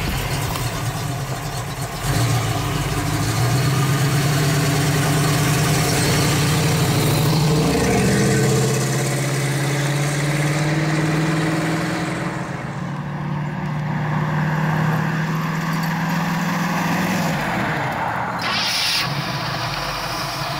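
1967 Ford Fairlane's 302 V8 running through its stainless-steel exhaust as the car drives off. The engine note comes in about two seconds in and climbs, steps with a gear change about eight seconds in, then holds a steady drone that eases off near the end.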